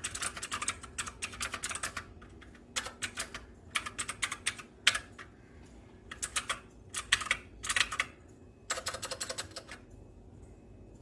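Typing on an HP GK400Y mechanical keyboard: quick runs of key clicks in bursts with short pauses between them, stopping near the end.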